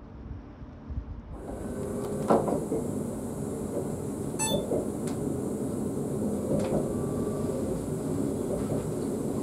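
The cab of an ES2G Lastochka electric train as it runs along the track: steady running noise with occasional sharp knocks and one short rapid rattle about four and a half seconds in. It follows a quieter low rumble in the first second and a half.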